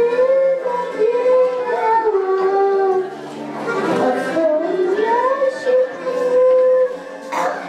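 A young girl sings a Polish folk song into a handheld microphone, her amplified voice carrying a held, gliding melody over an instrumental accompaniment.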